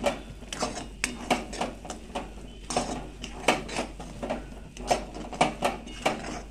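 Spatula scraping and knocking against a metal kadhai while stirring thick cooked semolina, in quick repeated strokes about three a second.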